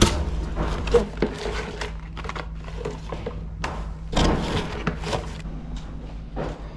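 Cardboard packaging rustling and scraping as an incense box is cut open with scissors and the packets inside are pulled out, in a run of short irregular rustles that thin out over the last second or so. A steady low hum runs underneath.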